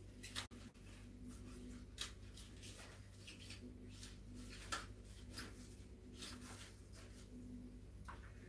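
Faint rustling and crinkling of flower stems and leaves handled while building a hand-tied bouquet, with a few sharper clicks, over a steady low hum.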